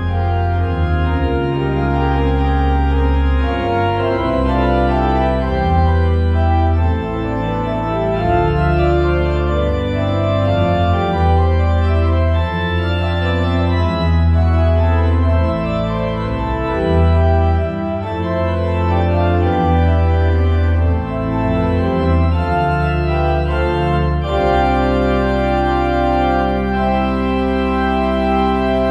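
Organ music closing the service: sustained chords over a bass line that changes every second or two, settling on one long held chord about 24 seconds in.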